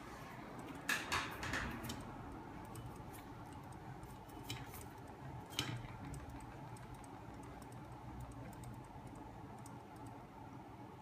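Homemade magnet engine running, its flywheel spinning, driven by a small 12 V electric motor: a steady low hum with a few scattered sharp clicks and ticks, the loudest about a second in.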